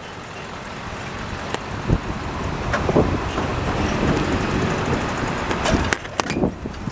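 Rushing noise of riding a bicycle along a city street: wind on the microphone mixed with passing car traffic, growing louder over the first few seconds and then holding steady, with a few sharp clicks and rattles.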